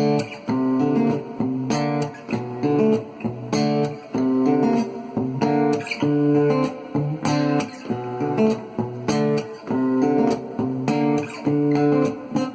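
Cort GA5F-MD acoustic guitar strummed in a flamenco style: rhythmic chords with sharp, percussive strokes.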